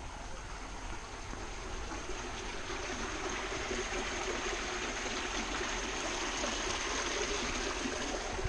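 A shallow creek trickling over a stony bed, getting louder about three seconds in.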